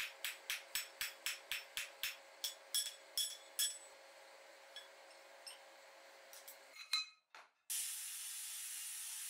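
Hand hammer blows on hot steel on an anvil, forging the end of a vise screw handle: quick ringing strikes about four a second, then a few slower, heavier blows ending about three and a half seconds in. After a cut near the end, the steady hiss of an angle grinder with a sanding disc working the steel handle.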